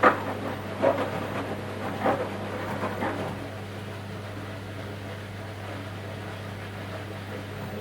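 Front-loading washing machine mid-wash: laundry and water sloshing and thudding in the turning drum, about once a second for the first three seconds, over a steady low hum. After that the drum goes quiet and only the hum carries on.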